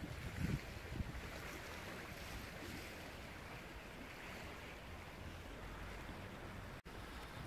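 Wind on the microphone over a steady wash of sea against the breakwater, with a few low gusts in the first second. The sound cuts out for an instant near the end.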